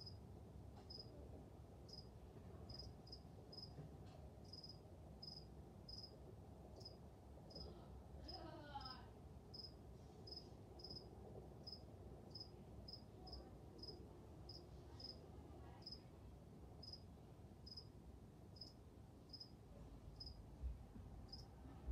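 Faint, short, high-pitched chirps repeating irregularly, about one and a half a second, insect-like, over low steady room noise.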